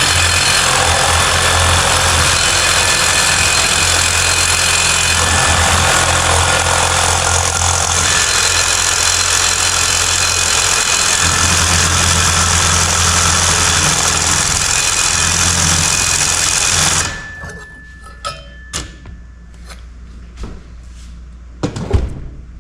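Reciprocating saw (Sawzall) cutting through the steel welds of a receiver hitch, running loud and steady with small changes in speed. It stops about 17 seconds in, followed by a few light metallic knocks.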